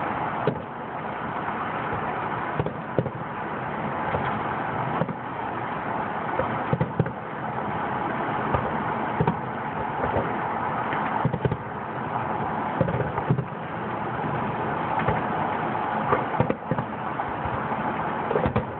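Aerial firework shells bursting, an irregular string of sharp bangs about one a second over a steady background noise.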